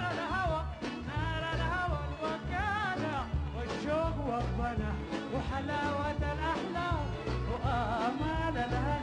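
Sudanese popular song: a male singer's voice in a wavering, ornamented melody over band accompaniment with a steady bass beat.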